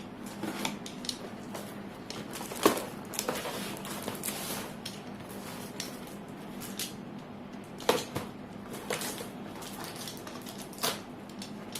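Cardboard boxes and packaging being handled: scattered taps, knocks and rustles, with sharper knocks about two and a half seconds in and again near eight seconds.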